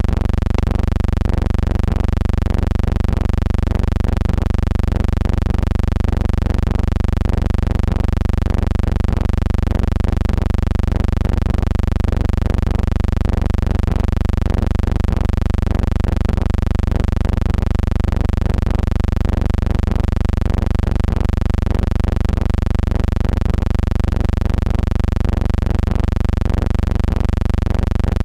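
A steady low hum that does not change throughout, with no other distinct sounds.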